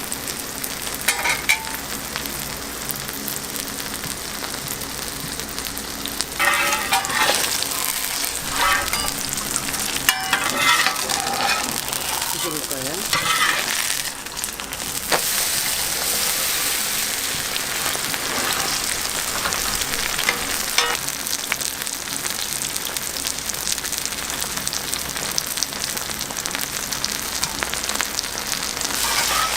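Green onion pancake (pajeon) batter sizzling as it fries in oil, a steady hiss. Now and then there are short bursts of clatter and scraping.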